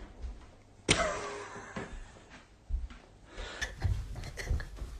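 Footsteps and handling noise from a phone camera carried through a house, with a sharp knock about a second in and several low thuds and clicks later.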